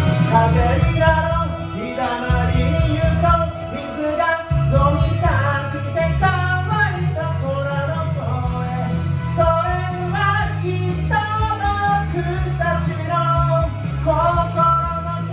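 A pop-rock song with a singing voice over a band, with steady bass underneath.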